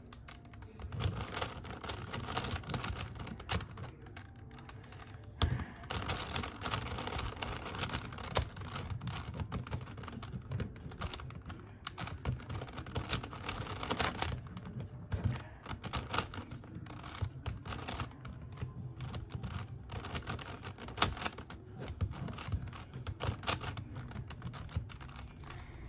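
Plastic megaminx puzzle turned rapidly by hand: a continuous run of quick plastic clicks and clacks as its faces are twisted, with short quieter gaps between bursts of turning.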